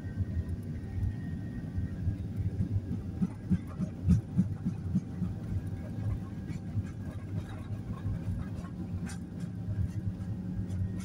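Jet airliner's engines heard from inside the cabin during the takeoff roll: a steady low rumble with thin steady whining tones above it, and a cluster of knocks and rattles about three to five seconds in.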